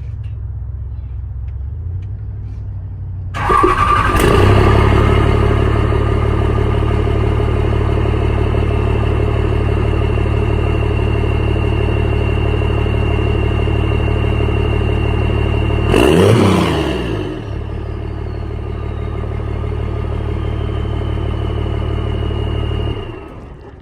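12-valve 5.9 Cummins diesel with a 5-inch exhaust stack starting up a few seconds in over a low rumble, then running loud. About two-thirds of the way through it revs once and falls back, a high whistle winding down in pitch afterwards. The sound drops off sharply near the end.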